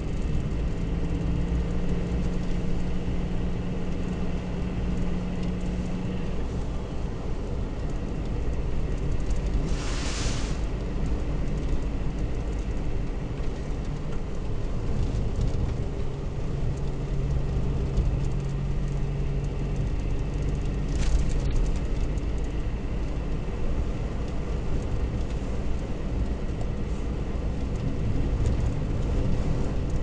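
Car driving on a snow-covered road, heard from inside the cabin: a steady low rumble of engine and tyres on snow. There is a brief hiss about ten seconds in and a short click about twenty-one seconds in.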